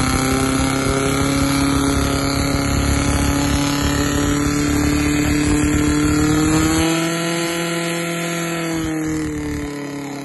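Portable fire pump engine running at full throttle, pushing water through the attack hoses. It holds a steady high pitch, rises slightly, then winds down and gets quieter near the end.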